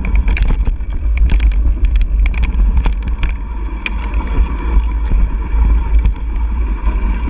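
Mountain bike riding a dirt singletrack trail: heavy wind rumble on the microphone over the tyres on dirt, with frequent sharp clicks and rattles from the bike over bumps.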